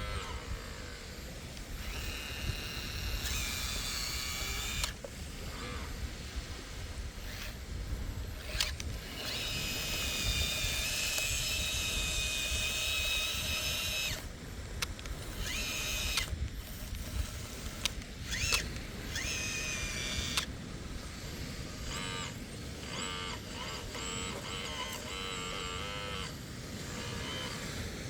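Electric hydraulic pump of a Kabolite K961 radio-controlled model excavator, whining in stretches of a few seconds as the controls are worked. The pitch shifts between stretches, and there are short breaks between them, over a steady low rumble.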